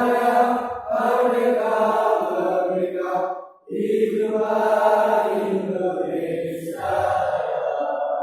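Choir singing together in long held phrases, with brief breaks for breath between them.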